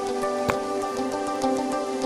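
Soft background music with long held notes over scattered light ticks, and one sharp click about half a second in.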